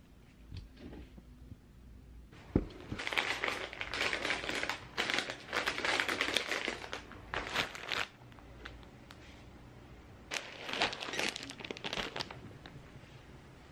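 Plastic snack packaging crinkling as it is handled and wiped down with a disinfecting wipe. It comes in two spells, a long one of several seconds and then a shorter one, with a sharp tap as the first begins.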